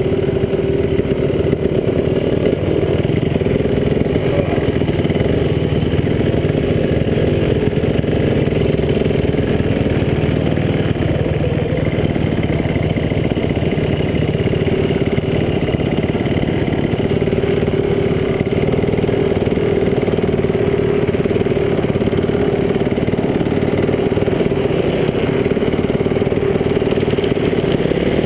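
Dirt bike engine running at steady, nearly constant revs, with its note holding an even pitch.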